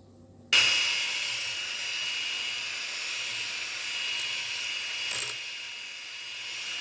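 Electric hand mixer switched on about half a second in, its two beaters whipping cream in a stainless steel bowl with a steady motor whine.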